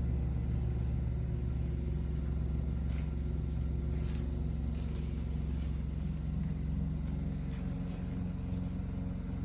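Steady low hum with a few faint ticks; the deepest part of the hum drops away near the end.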